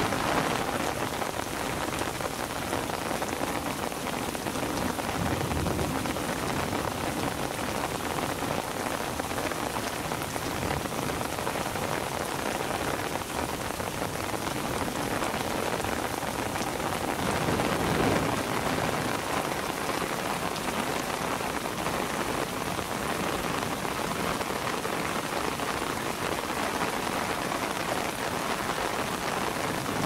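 Steady rain falling on rose bushes and wet paving, swelling a little twice.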